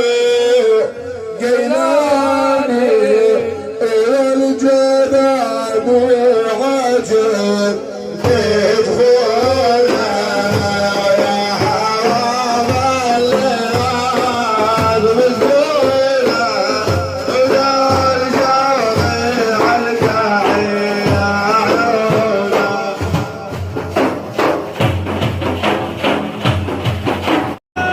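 A man chanting a devotional praise song in Arabic over driving hand-drum percussion, the drumming strongest near the end. The sound cuts out for a moment just before the end.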